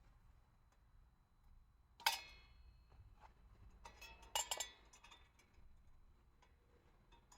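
Hard objects clinking as gear is handled: one sharp clink with a short ring about two seconds in, then a quick run of clicks and clinks a couple of seconds later.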